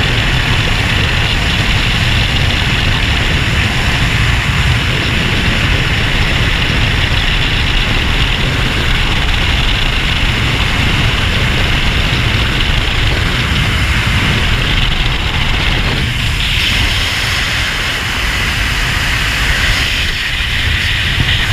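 Steady rush of freefall wind buffeting a skydiver's helmet-mounted camera, shifting slightly in tone about three-quarters of the way through.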